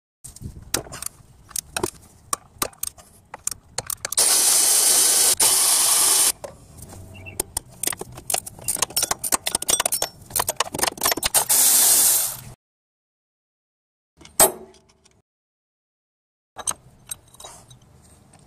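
Ratcheting wrench clicking as bolts are loosened and backed out, interrupted by two loud hissing bursts of about two seconds each; after a pause, a single click and then more clicking near the end.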